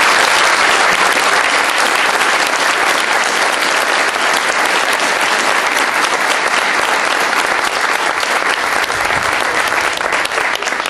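Audience applauding steadily, thinning to a few scattered claps near the end.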